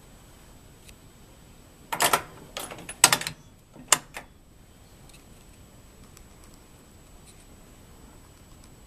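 Sharp metallic clicks and clatters from the mechanism of a 1937 coin-operated fox hunt arcade cabinet as the knob on its side is worked. They come in three quick groups about a second apart, starting about two seconds in, and are followed by a few faint ticks.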